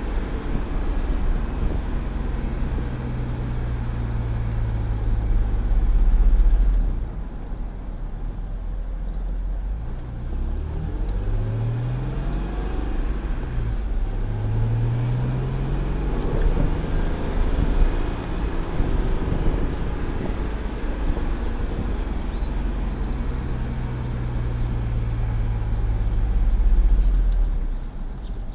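Honda/Acura NSX's mid-mounted V6 engine pulling the car along, its note steady at first, then climbing and dropping several times in the middle as the car accelerates and shifts, before settling steady again. A constant low road and wind rumble runs underneath.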